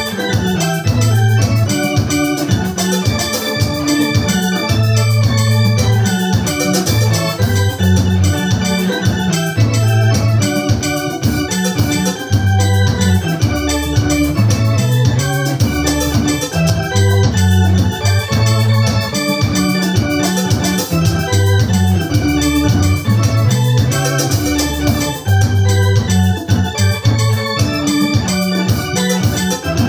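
Electronic arranger keyboard playing a Swahili worship song with an organ-like voice over a steady bass line and a regular beat.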